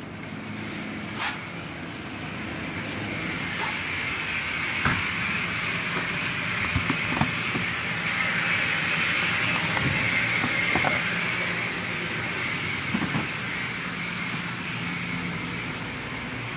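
Steady hum and hiss of store refrigeration from the drink coolers, swelling and then easing, with a few light clicks and knocks.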